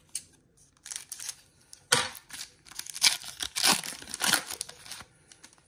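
A trading-card pack wrapper being torn open and crinkled by hand, in several crackly bursts. The loudest tear comes about two seconds in and a longer stretch of crinkling follows about a second later.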